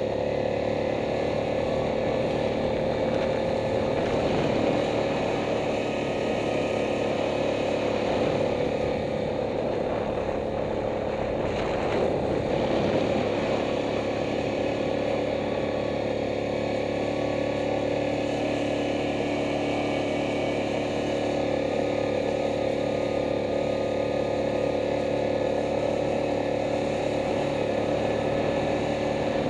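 Yamaha Grizzly ATV's single-cylinder four-stroke engine running steadily under way, its pitch swinging up and down briefly about four seconds in and again around twelve seconds.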